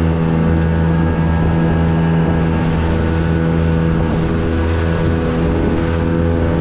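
Small boat's outboard motor running at a steady pitch while the boat is underway, over a steady rush of wind and water.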